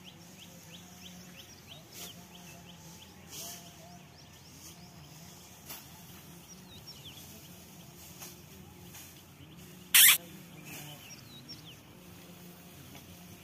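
Quiet outdoor ambience with faint, rapid high chirps at first and a few short knocks, then one sudden loud burst of noise lasting a fraction of a second about ten seconds in.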